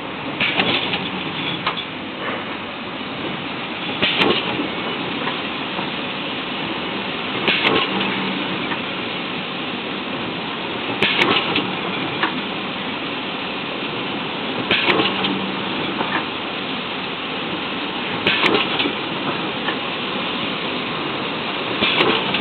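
Automatic side-seal shrink packaging machine running: a steady mechanical hum, broken by a short, sharp clattering burst about every three and a half seconds, seven times. The bursts are the machine's repeating cycle, one per package.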